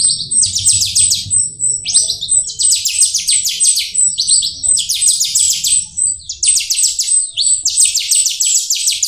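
Jalak rio-rio starling singing a continuous song of fast, rattling chatter phrases, each a quick run of clicky notes, laced with a thin, high, repeated whistle note.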